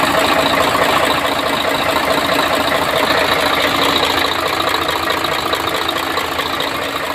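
Mercedes-Benz racing truck engine running steadily, with a rapid knocking or ticking running through it.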